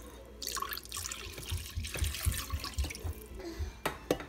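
Chicken broth pouring from a can into a pot of butter-and-flour roux, splashing and trickling into the thick mixture. A couple of light knocks come near the end.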